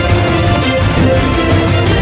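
Background music with sustained melodic notes over a steady bass pulse.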